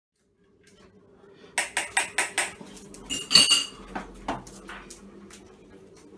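Stainless steel dog bowl being handled: a quick run of sharp clacks, then one bright metallic ring near the middle, followed by scattered clinks, over a faint steady hum.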